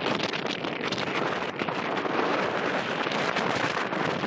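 Wind buffeting the microphone over the wash of choppy sea water: a steady, rushing noise with no distinct engine note.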